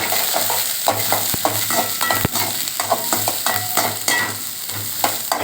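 Chopped onion and green chillies sizzling in hot oil in a kadai, with a spatula repeatedly scraping and knocking against the pan as they are stirred.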